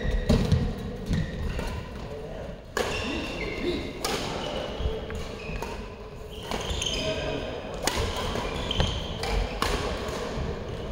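Badminton rally: sharp racket-on-shuttlecock hits every second or two and short high squeaks of shoes on the court mat. Voices chatter in the background, echoing in a large hall.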